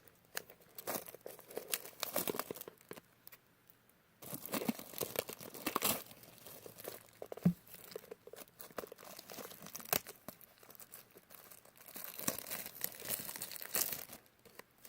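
Plastic shrink-wrap being torn and peeled off a cardboard card box, crinkling and crackling, with a short pause about three seconds in.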